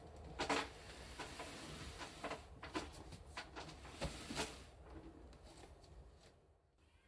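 Irregular clicks and knocks of hard objects being handled, loudest about half a second in and again around four seconds in, dying away near the end.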